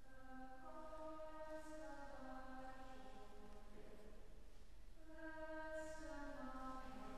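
Faint, slow hymn singing with long held notes, in two phrases, the second beginning about five seconds in.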